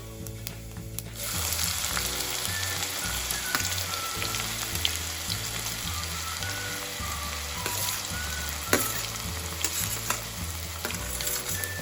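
Chopped onions sizzling in hot oil with fennel seeds. The sizzle starts about a second in as they hit the pan, then keeps up as a steady fry.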